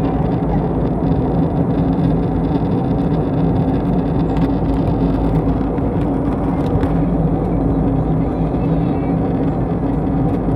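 Airliner cabin noise heard from inside the plane: a steady drone of engines and rushing air with a constant low hum.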